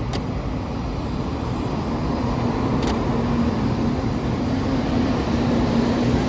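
Taiwan High Speed Rail 700T trainset pulling into the platform: a steady rumble of wheels on rail that grows louder as the cars pass, with a low steady hum setting in about two seconds in. Two short clicks, one at the start and one about three seconds in.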